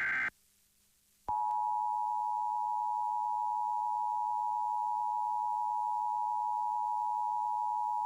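The last of an Emergency Alert System SAME header's digital data bursts, a pause of about a second, then the EAS two-tone attention signal (853 and 960 Hz sounding together) starting about a second in and held steady. It marks the start of a broadcast Required Monthly Test alert.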